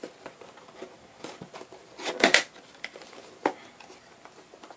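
A small cardboard retail box being handled and its end flaps pulled open: scattered light rustles and clicks of card, with a louder cluster of rustling about two seconds in and a sharp click of card about three and a half seconds in.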